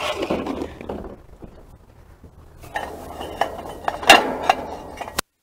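Metal gas-grill parts clinking and clanking against each other and a galvanized tub as they go into soapy soaking water, with a run of clanks in the second half and the sharpest about four seconds in.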